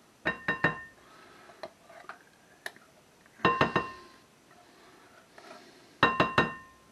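A metal can and a spatula clinking against a glass mixing bowl while condensed soup is scraped and knocked out of the can. There are three bursts of three or four sharp ringing knocks, about three seconds apart, with soft scraping between them.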